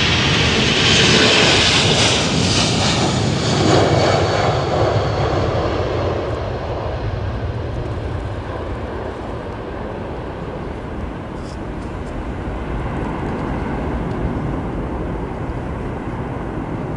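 Airbus A340's four jet engines at takeoff power: a loud roar with a strong high hiss during the takeoff roll. It fades to a lower, steadier rumble as the airliner lifts off and climbs away.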